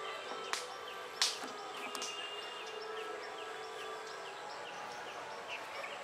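Outdoor ambience: a high chirping repeating about three times a second over a faint steady hum, with three sharp clicks in the first two seconds, the loudest about a second in.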